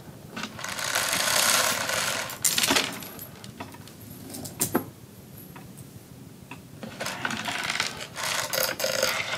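Long metal chain being pulled through and dragged around a statue, clinking and rattling right next to the microphone: two longer stretches of rattling with a few sharp single clinks between them.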